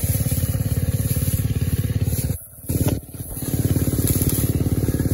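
Small portable generator engine running steadily with a fast, even firing pulse. Its sound dips away briefly twice around the middle.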